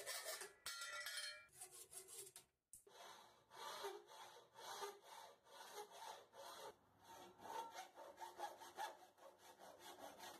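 Hand hacksaw with a coarse-toothed blade cutting aluminum in quick back-and-forth strokes. The sawing breaks off briefly a little under three seconds in, then resumes steadily.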